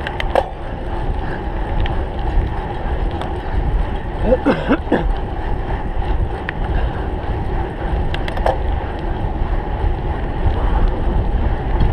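Wind buffeting the microphone of a camera riding on a cyclocross bike during a race, a steady rumble with scattered clicks and rattles from the bike. A brief voice-like sound comes about four seconds in.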